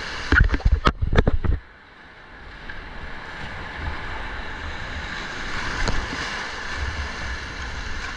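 Whitewater rapids rushing around an inflatable raft, heard from on board as a steady wash of churning water. In the first second and a half there is a run of loud knocks and buffets on the microphone, then the water noise settles in.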